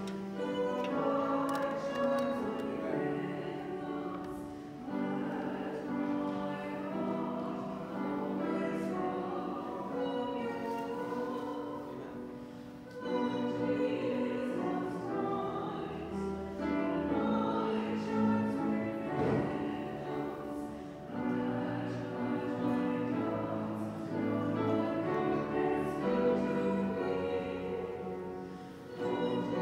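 Choir singing a slow hymn with instrumental accompaniment, in sustained held notes.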